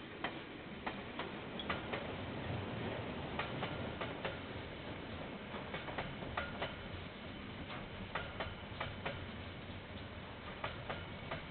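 KiwiRail train rolling slowly past, its wheels clicking over a rail joint in groups of about four clicks, one group roughly every two and a half seconds, over a low rumble.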